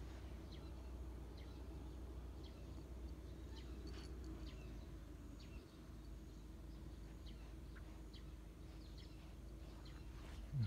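Quiet outdoor ambience: a steady low background rumble with faint, scattered bird chirps, and a brief low thump near the end.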